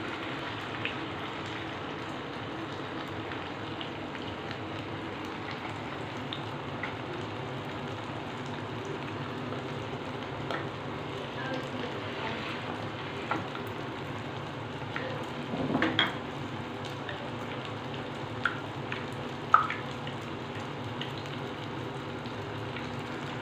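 Potato pinwheels dipped in flour paste frying in hot oil in a nonstick frying pan, a steady sizzle. A few sharp clicks in the second half stand out above it, the loudest about three-quarters of the way through.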